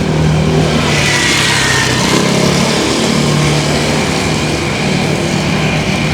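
A car passing on a wet street: a steady engine hum under tyre hiss that swells from about a second in and then eases.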